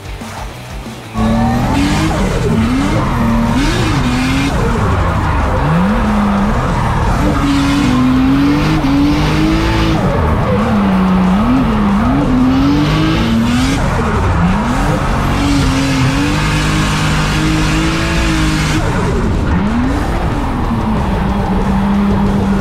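Drift car's engine revving up and down hard again and again, heard from inside the cabin, with tyres squealing as the car slides; the revs hold steadier near the end. A quieter car drifting at a distance comes first, for about a second.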